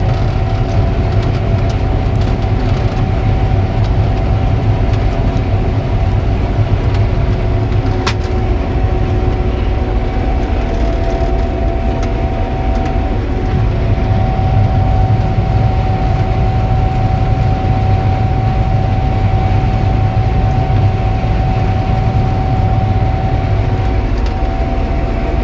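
Gleaner R72 combine running steadily while harvesting yellow peas: a loud, even low drone with a steady whine from the machine on top.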